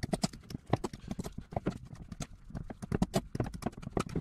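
A metal fork clicking and scraping against a glass mixing bowl in quick, uneven taps as pâté is mashed into butter.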